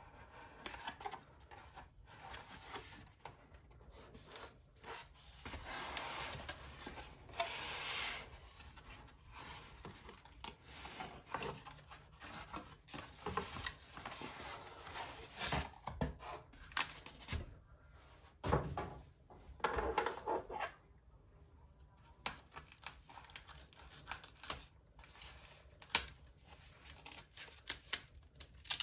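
Close-up unboxing handling noise: a cardboard shipping box is opened, its flaps and sides rubbing and rustling. A wrapped parcel slides out, its wrapping crinkling, with clicks and knocks on the tabletop. Near the end, scissors snip into the wrapping.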